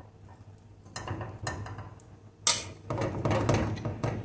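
Steel wire skimmer clinking and scraping against stainless steel pots while scooping cooked rice from one pot into another. A few light clinks come first, the sharpest hit about two and a half seconds in, then a busier run of scraping and clatter.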